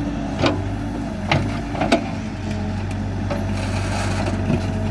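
Hidromek 102B backhoe loader's diesel engine running steadily under work, with a few sharp cracks and knocks from digging out roots: three in the first two seconds and one more near the end.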